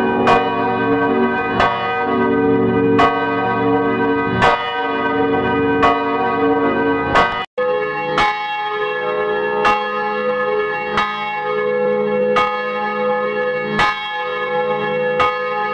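Church bells ringing, one strike about every second and a half, each ringing on into the next. About halfway through there is an abrupt cut, and the strikes go on at the same pace with a different tone.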